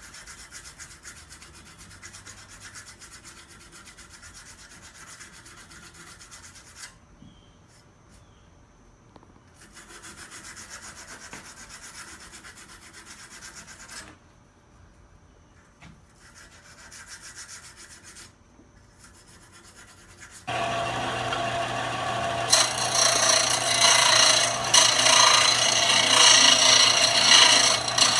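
A forge-welded mokume gane billet made from coins is being smoothed by hand with steady rasping strokes, with a few short pauses. About 20 seconds in, a power tool starts with a steady hum and runs much louder, growing louder again a couple of seconds later.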